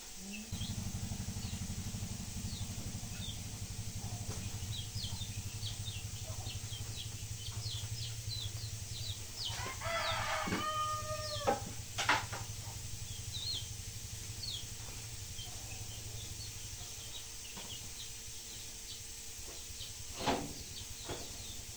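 A rooster crows once about ten seconds in, over a steady low hum and frequent short high chirps of small birds. A couple of sharp knocks sound around twelve seconds and again near the end.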